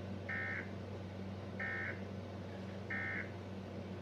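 Emergency Alert System end-of-message data tones from a TV: three short, identical buzzy bursts of digital data, about a second and a quarter apart, signalling the close of the alert test.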